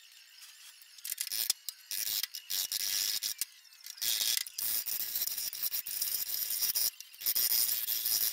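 Hand tool scraping over the bare steel of a 1970 Datsun 240Z's rear quarter panel, smoothing the area where the side-marker hole has been welded shut. The sound is a series of harsh rasping strokes that start about a second in, with short pauses between them.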